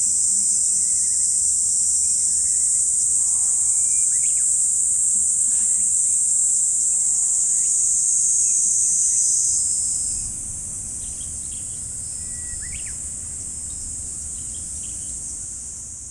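A steady, high-pitched chorus of summer insects, which drops in level about ten seconds in. A few short bird chirps rise above it.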